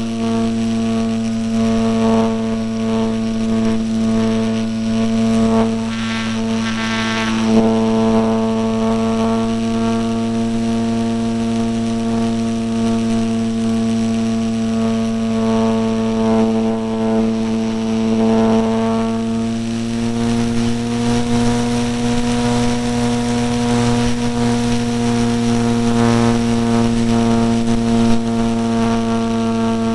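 Electric motor and propeller of an E-flite Apprentice RC trainer plane in flight, heard from a camera on the airframe: a steady buzzing drone whose pitch shifts slightly with the throttle, with a few brief rushes of wind noise.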